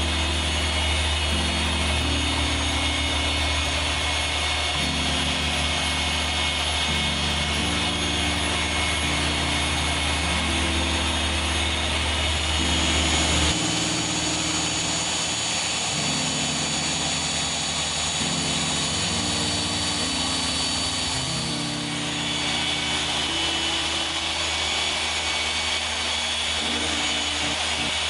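Rupes Bigfoot LHR15 random-orbital polisher running steadily as it buffs car paint, with background music playing underneath.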